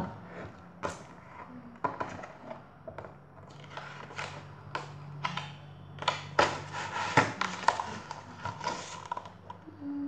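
Pages of a large picture book being turned and handled: stiff paper rustling and flapping in a run of irregular crinkles and brushes.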